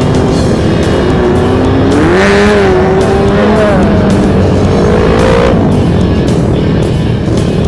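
Suzuki Satria FU 150's single-cylinder four-stroke engine running under way, with heavy wind rumble on the helmet microphone. The engine pitch climbs about two seconds in, holds, then drops back near the end.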